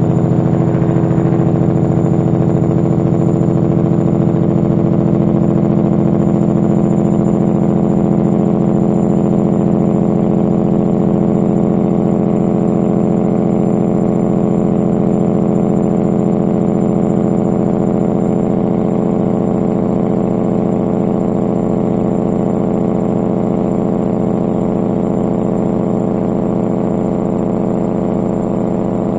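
Caterpillar 3406E diesel in a Kenworth W900L running steadily, with a loud exhaust drone through Pittsburgh Power mufflers on 5-inch stacks set in their loud configuration. The engine note holds a steady pitch and eases slightly in level over the second half.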